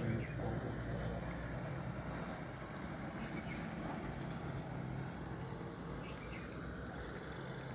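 Insects chirping in a steady high-pitched trill, broken into short pulses at first and then running on more evenly, over a low steady rumble.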